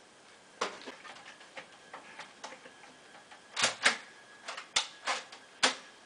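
A string of irregular sharp clicks and knocks, with the loudest few knocks coming close together in the second half.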